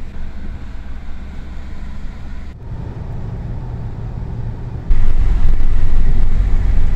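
Road and engine noise inside a moving car, a steady low rumble. It changes abruptly about two and a half seconds in, then jumps to a much louder, heavier low rumble about five seconds in.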